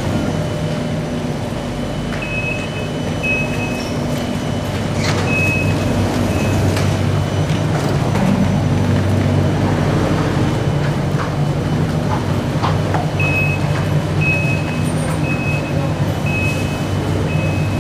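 Singapore MRT train standing at the platform, its equipment humming steadily, while a high-pitched door warning tone beeps in short runs. The beeps come a few times early on and then about twice a second near the end.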